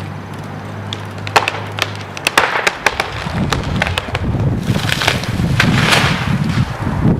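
A tree coming down: wood cracks and splinters in a string of sharp snaps, then a rushing crash of branches.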